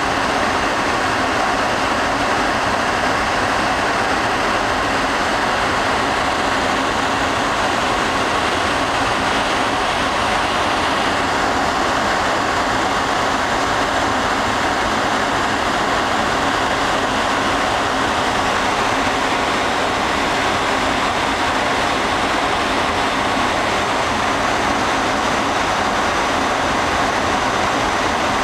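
StorageTek L180 tape library running its start-up initialization: a steady mechanical whirring as its robot moves among the tape cartridge slots.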